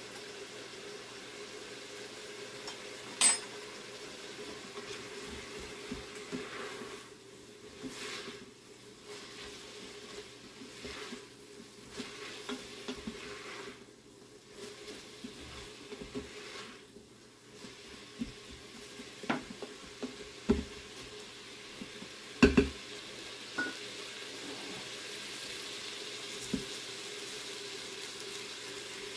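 Onions sautéing in an Instant Pot's stainless steel inner pot: a wooden spoon stirring and scraping through them, with sizzling that grows near the end. Several sharp knocks against the pot stand out, the loudest about two-thirds of the way through.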